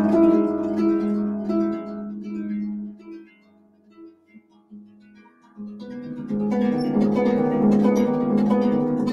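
Harp music: a repeating plucked figure dies away about three seconds in. After a near pause of a couple of seconds, new plucked notes enter and build again.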